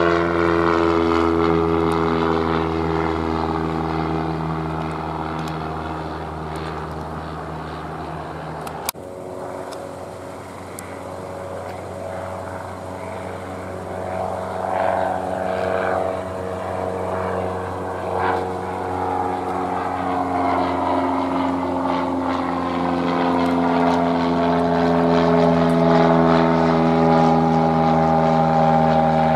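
Single-engine piston propeller planes. A low-wing light plane's engine drone fades as it climbs away. After a sudden cut about nine seconds in, a high-wing light plane's engine drone grows louder as it comes closer.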